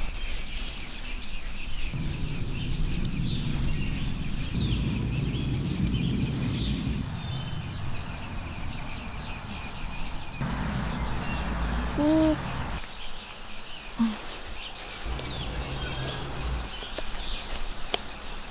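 Woodland birds chirping and singing over a steady high insect hum, with stretches of low rumbling noise. About two-thirds through comes a brief, louder pitched call.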